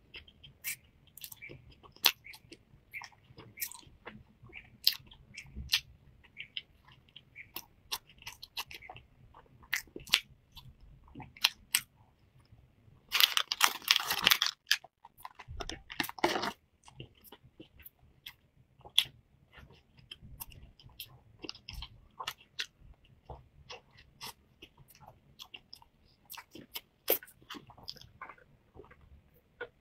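Close-up chewing and biting of a flaky egg-yolk pastry, with many small crisp crackles and mouth clicks. About halfway through, a stretch of loud plastic crinkling as a wrapped pastry is torn open, followed by a second shorter crinkle.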